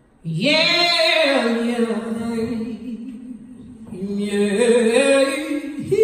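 A woman singing unaccompanied into a vocal microphone: two long held phrases, the first swooping up and then settling on a steady note, the second pitched a little higher.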